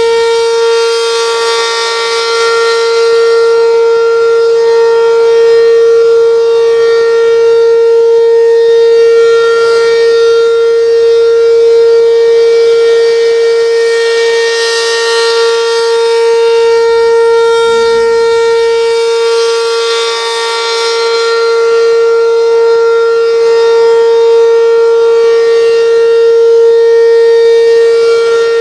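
Restored Werden outdoor warning siren sounding one steady, unchanging pitch, its loudness slowly swelling and fading.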